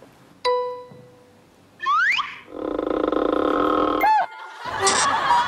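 Cartoon-style comedy sound effects. A chime strikes about half a second in and rings away, a quick rising whistle follows near two seconds, and then a steady buzzing drone lasts about a second and a half. A short wobbling boing and a brief burst of effect noise come near the end.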